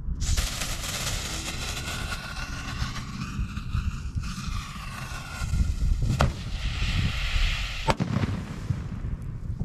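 A firework aerial shell exploding inside a mortar tube in a culvert-pipe mortar rack: a sharp crack about six seconds in, then a sharper blast about two seconds later, over a steady hiss.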